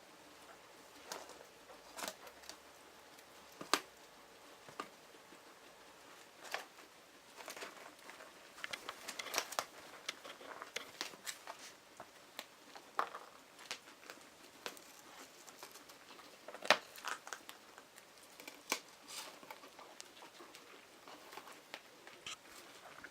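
Guinea pigs moving about their enclosure: soft rustling with scattered sharp clicks and ticks at irregular intervals, busiest around the middle.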